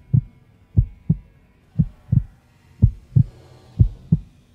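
Heartbeat sound effect: low double thumps in a steady lub-dub, about one pair a second, used as a suspense cue.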